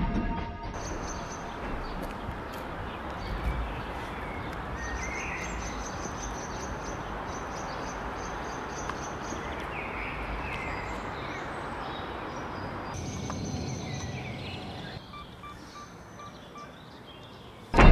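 Outdoor ambience: a steady hiss of background noise with a few faint bird chirps, turning quieter near the end.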